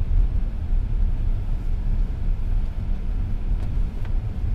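Car driving slowly, heard from inside the cabin: a steady low rumble of engine and road noise, with a few faint clicks late on.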